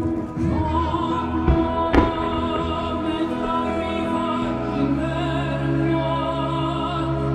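Classical-style music with an operatic singing voice over sustained accompaniment, the soundtrack of a fireworks show; two short sharp cracks about one and a half and two seconds in.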